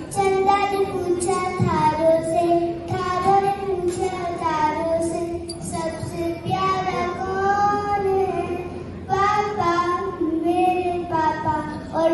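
A child singing a slow melody in long held notes, in phrases with short breaks between them.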